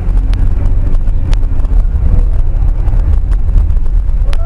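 Car driving, heard from inside the cabin: a heavy low road-and-engine rumble, with a few sharp clicks.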